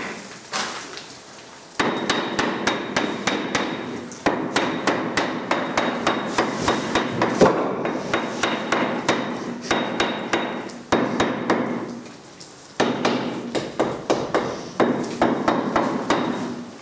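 Repeated hammer blows, about three a second, in long steady runs that pause briefly about four seconds in and again for a couple of seconds near two-thirds of the way through.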